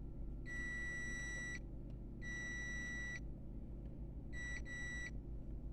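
Digital multimeter's continuity buzzer beeping as the probes touch points on a circuit board: four high beeps, the first two about a second long, the last two short and close together. Each beep marks a near-zero-resistance connection between the probes.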